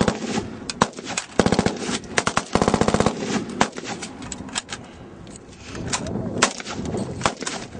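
SA80 rifles firing on a range: two rapid automatic bursts in the first three seconds, then scattered single shots.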